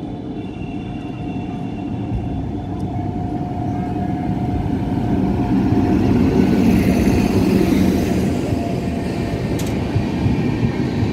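Express passenger train hauled by an electric locomotive approaching and running through the station at speed. Its rumble grows steadily louder to a peak as the locomotive passes about six seconds in, then the coaches' wheels roll by.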